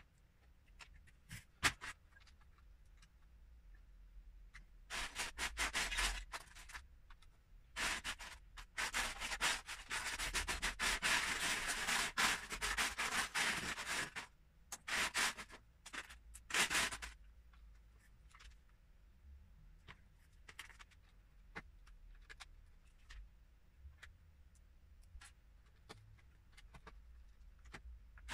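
Hands rummaging through loose Lego pieces in a clear plastic storage tub, a dense clattering rattle of small plastic bricks being stirred. It comes in two spells, a short one about five seconds in and a longer one from about eight to fourteen seconds in, with scattered single clicks of pieces around them.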